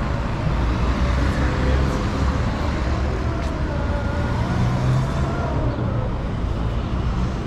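Street traffic: motor vehicles running by with a steady low rumble, and one engine note wavering up and down in pitch through the middle.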